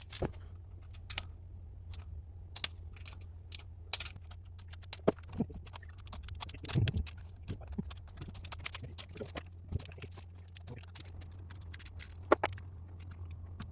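Hand tools and metal parts clinking during motorcycle repair work: scattered light clicks and knocks at irregular intervals, over a steady low hum.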